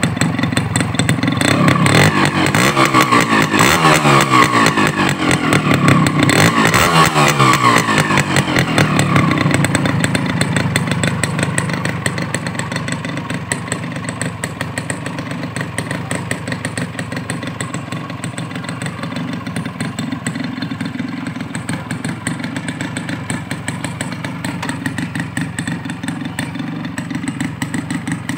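Honda CDI 100's small four-stroke single-cylinder engine revved several times in quick rises and falls, then settling to a steady idle for the rest of the time.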